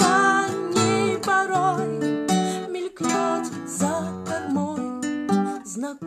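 A woman singing a slow song with vibrato to her own strummed acoustic guitar.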